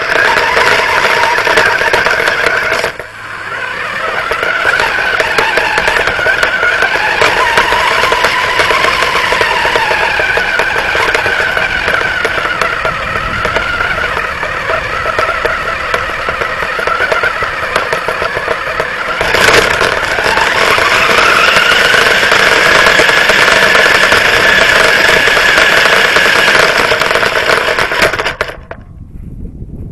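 Radio-controlled truck driving, heard close from its own chassis: a motor whine that rises and falls in pitch with speed over a steady rattle of chassis and tyres. It cuts off suddenly near the end.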